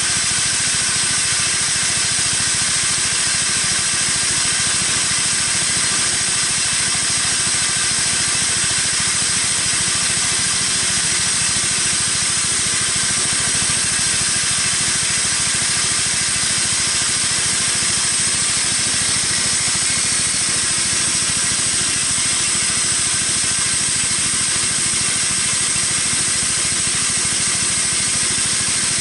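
Homemade band sawmill running steadily as its blade cuts through a log, a constant drive hum under a strong high hiss.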